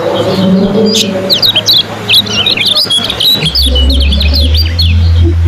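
Kecial kuning white-eyes singing a fast run of high, rapid chirping notes. A low steady hum comes in about halfway through.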